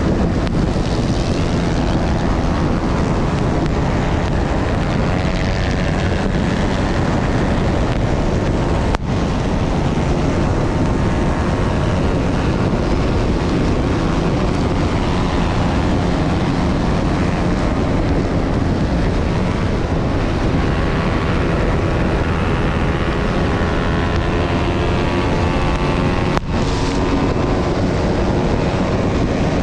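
Beta 300 RR two-stroke enduro motorcycle engine running hard at racing speed, with wind buffeting the on-board camera microphone and other race bikes close by. The sound dips for an instant twice, about nine seconds in and near the end.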